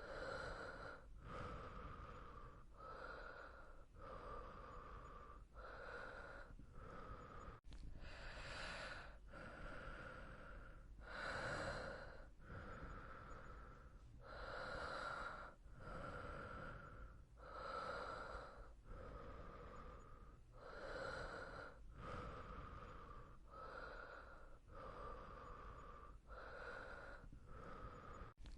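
A person breathing slowly and evenly, close to the microphone, with each breath in and out heard as a soft rushing swell about every second and a half. Some breaths are a little louder than others.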